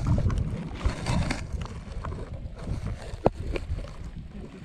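Wind buffeting the microphone in uneven gusts, with a single sharp click about three seconds in.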